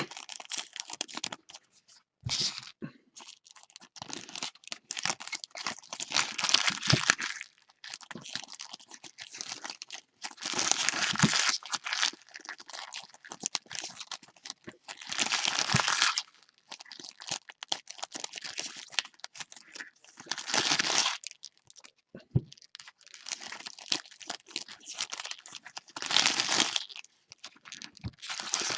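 Foil trading-card pack wrappers being torn open and crinkled by hand, with a louder tearing burst about every five seconds.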